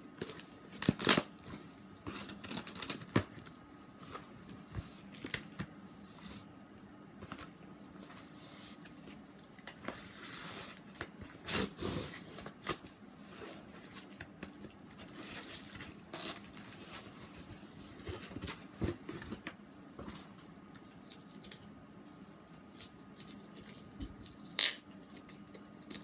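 Packing tape being peeled and torn off a taped package, with the wrapping rustling and scattered clicks and taps between the pulls. About ten seconds in comes one longer rip.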